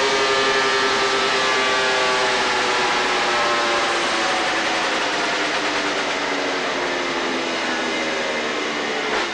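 Motorcycle engine running under load on a rolling-road dynamometer, its note falling slowly as the revs come down. A short knock sounds near the end.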